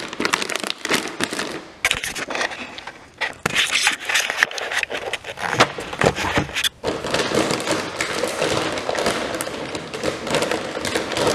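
Clear plastic bags crinkling and a cardboard box rustling as parts are unwrapped by hand, with scattered sharp clicks and scrapes of handling.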